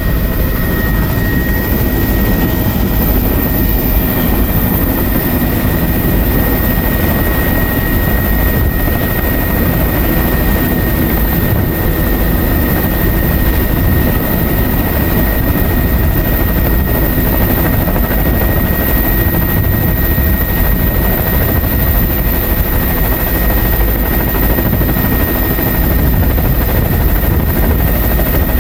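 Helicopter heard from inside its cabin: a loud, steady rumble of engine and rotor with a steady high whine over it.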